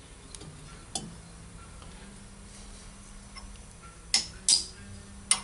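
Small steel engine parts (valve springs, retainers, keepers) clinking as they are handled and set down: a light click about a second in, then three sharp metal clinks with a short ring near the end.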